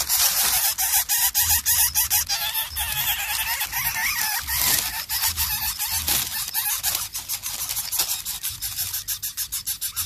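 Lesser coucal nestlings begging with harsh, hissing rasps, heard as a fast run of scratchy clicks.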